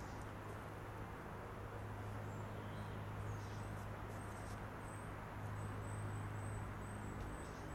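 Outdoor background with a steady low rumble, faint bird chirps and a high, pulsing insect trill that comes in about halfway.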